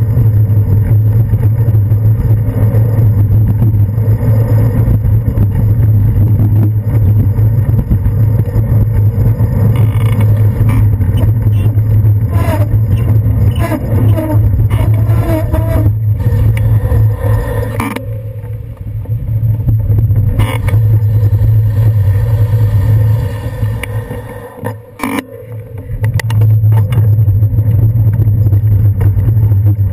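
Steady muffled rumble of wind and road vibration on a handlebar-mounted GoPro camera as a bicycle rides along a city street in traffic. The rumble eases off twice in the second half as the bike slows.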